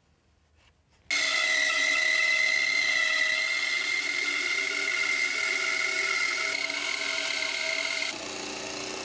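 Bandsaw cutting through a thick walnut blank: a steady high whine with sawing noise, coming in suddenly about a second in and dropping quieter near the end.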